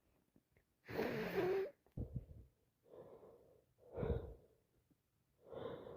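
A person with a head cold taking a series of about five gasping, wheezy breaths, the loudest about a second in: the build-up to a sneeze.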